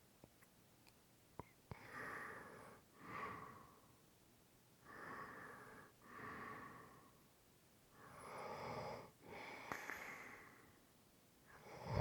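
A sleeping person's slow, heavy breathing, faint and airy: three in-and-out breaths about three seconds apart, with a few small clicks in the first two seconds.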